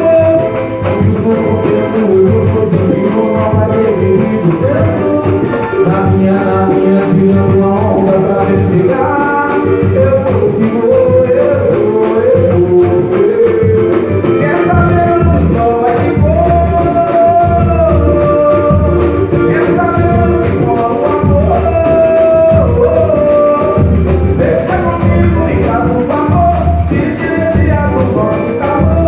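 Music: singing over a steady drum beat, with a tambourine-like jingle in the percussion.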